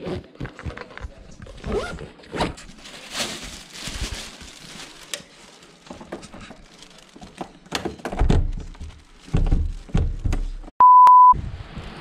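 Rustling, clicks and knocks of a fabric backpack and gear being handled, with a few heavier thumps. A single steady electronic beep lasting about half a second sounds near the end.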